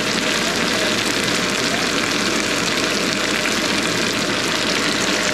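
Kitchen range hood fan running steadily, drawing air up from the stove.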